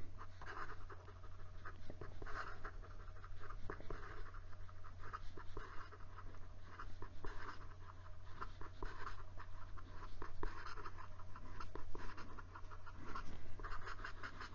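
A Penbbs 480 fountain pen's steel nib scratching across notebook paper in quick cursive writing, a rapid irregular run of short strokes. A steady low hum sits underneath.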